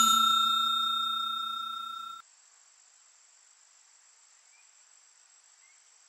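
A bell-like ding sound effect rings out and fades, then cuts off about two seconds in. After it, faint steady high-pitched chirring of crickets.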